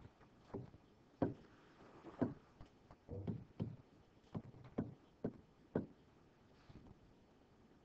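Faint, irregular taps of a stylus striking a touchscreen while handwriting is written on it, about two a second, dying away about six seconds in.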